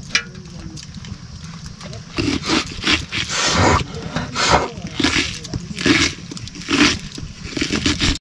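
Crisp crunching of a cabbage head being sliced against a sickle blade, a cut about every half second to a second from about two seconds in, over a steady low rumble.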